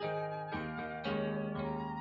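Solo piano playing a slow instrumental song, new notes and chords struck about every half second and left to ring.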